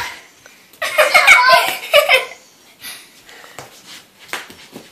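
Children laughing loudly for about a second and a half, then a few light knocks and taps.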